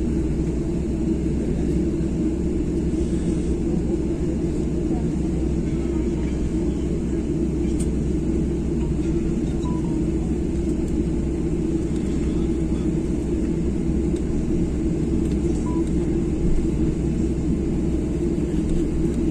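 Steady low drone inside the cabin of a Boeing 737 airliner taxiing: jet engines at low power and cabin air blending into an even rumble.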